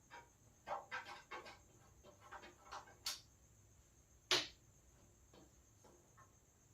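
A PC case and its packing being handled: scattered light clicks and rustles, with two sharper clicks about three and four seconds in.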